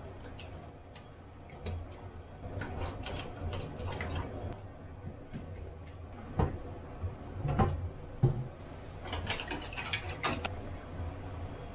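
Kitchen handling sounds: scattered light clicks and knocks of a bottle, utensils and bowls being handled, with a few louder knocks past the middle. Near the end comes a quick run of clicks as a wire whisk beats egg mixture for takoyaki batter and strikes the bowl.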